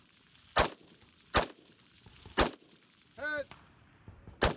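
Four rifle shots, sharp cracks with a short tail. The first three come about a second apart, then a pause of about two seconds before the fourth.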